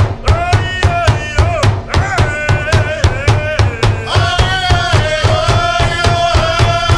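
Native American drum song: a drum struck in a steady beat, about three strokes a second, under high-pitched singing that holds and bends long notes.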